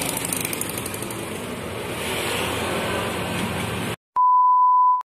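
Steady street-side background noise with an engine running. About four seconds in it cuts off and a loud, steady test-tone beep, the kind played over TV colour bars, sounds for just under a second, then stops abruptly.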